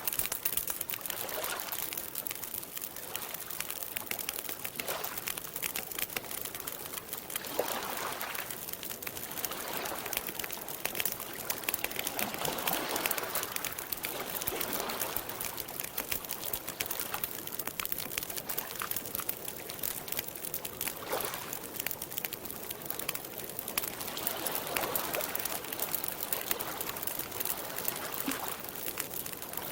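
Campfire crackling and popping in many small sharp snaps, over slow swells of lake water lapping.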